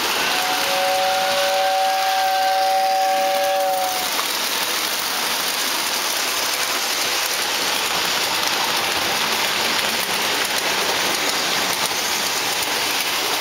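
Lionel model train whistle sounding one long blast of two notes together for about three and a half seconds, over a steady rushing hiss.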